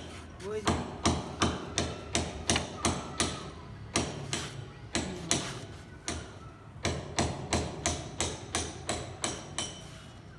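Hammer blows during building work: runs of sharp, evenly spaced strikes at about three a second, pausing briefly in the middle before starting again.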